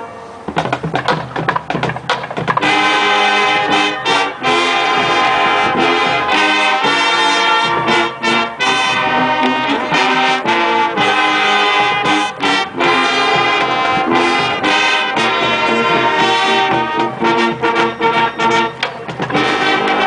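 High school marching band playing a brass-heavy funk arrangement. A held chord breaks off at the start and short punchy stabs follow; from about three seconds in the full brass section plays loud sustained chords, punctuated by drum hits.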